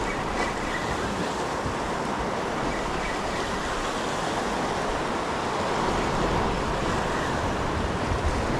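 Ocean surf washing steadily on the shoreline, an even rushing wash with no breaks.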